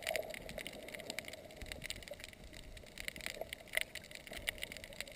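Underwater ambience heard through a camera's waterproof housing: a muffled steady hum with many irregular faint clicks and crackles, and a couple of sharper clicks about two-thirds through.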